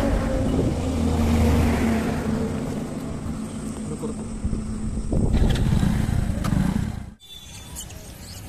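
Motorbike engine running steadily, swelling and easing, then cut off abruptly about seven seconds in, leaving quieter outdoor ambience.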